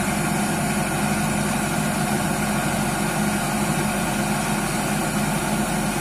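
Fieldking crawler combine harvester running steadily at a constant pitch, its engine and unloading auger turning as threshed paddy grain pours from the spout.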